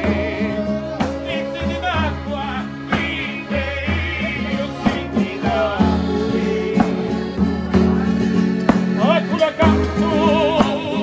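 Two street musicians singing with vibrato to a strummed acoustic guitar and a hand-struck frame drum with jingles (tamburello), the drum keeping a steady beat.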